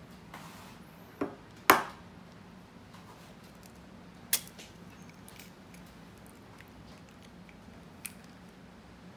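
A chicken egg being tapped against a bowl and its shell cracked open: a few sharp knocks, the loudest about two seconds in, another near the middle and a light one near the end, over a faint steady low hum.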